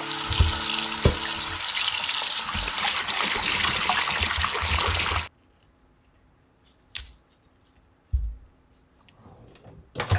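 Tap water running hard into a stainless steel bowl of broccoli being rinsed by hand, stopping suddenly about five seconds in. Then a couple of single knife chops on a wooden cutting board.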